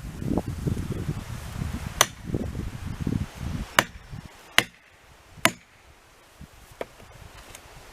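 Sharp strikes on a felling wedge being driven into a chainsaw cut: four loud cracks about a second apart, then a fainter one near the end. A low chainsaw rumble runs under the first half.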